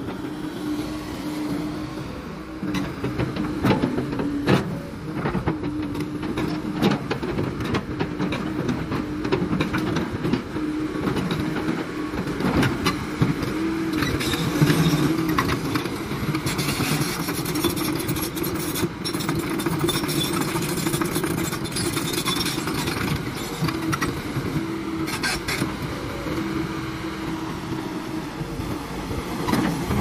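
Komatsu PC200-8 excavator's diesel engine running steadily, a constant low hum, with scattered clicks and knocks over it.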